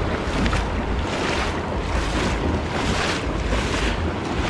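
Ocean surf washing in, with wind buffeting the microphone, and a hiss that swells and fades about once a second.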